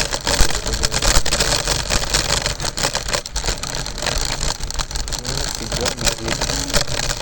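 Ride noise of a scooter rolling over pavement: a steady low rumble with many short rattling knocks.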